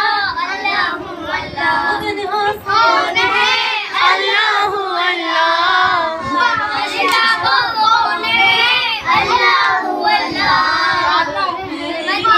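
A group of young children singing a devotional Islamic chant together, voices overlapping in chorus, with some hand clapping.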